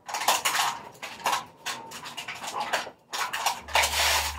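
Irregular clattering, crinkling and rubbing of recyclable scrap being handled and sorted. A low steady hum joins about three and a half seconds in.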